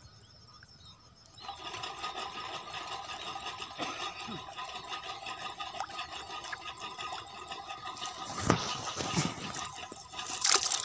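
A small engine starts up about a second and a half in and runs steadily. Two louder splashes come near the end as hands work in the muddy water.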